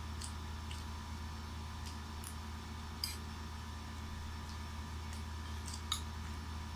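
Metal spoon clinking and scraping against a plate while scooping fried rice: scattered short clicks, the two sharpest about three seconds in and near the end. A steady low hum runs underneath.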